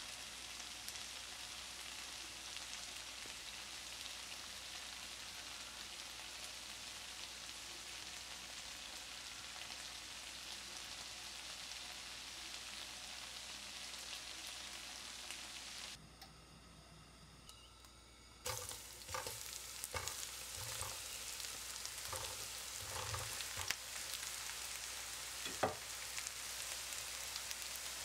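Tempe slices frying in oil in a pan: a steady sizzle that drops away briefly a little past halfway, then comes back with the knocks and scrapes of a spatula turning the pieces.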